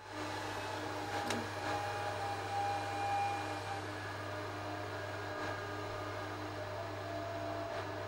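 Dell PowerEdge R710 server's cooling fans running during boot: a steady whir with a constant low hum and a few faint steady tones above it.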